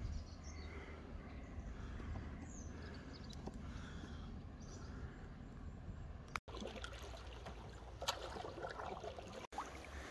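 Shallow river water running and trickling over a rocky bed around a grounded canoe, with light splashing and a few faint knocks. The sound cuts out briefly twice.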